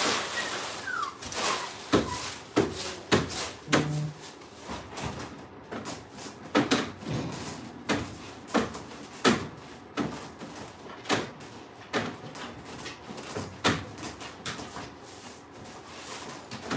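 Wire dog-pen panels clanking and knocking as they are handled: a string of sharp, irregular metal strikes, some in quick pairs, with a short falling squeak near the start.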